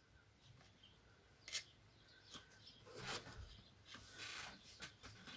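Near silence with the faint handling sounds of crocheting: soft rustles of yarn and light clicks from the crochet hook, one a little sharper about a second and a half in.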